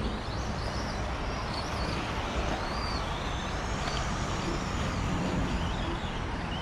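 Several vintage four-wheel-drive electric RC cars racing: a steady rushing noise of motors and tyres, with short motor whines rising and falling as the cars speed up and slow down.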